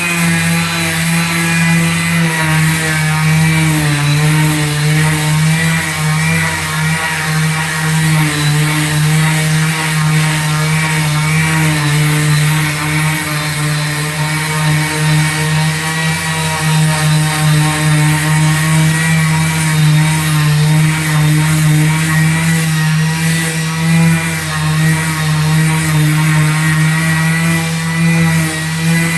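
Electric palm sander running steadily with a buzzing hum, its pitch wavering slightly.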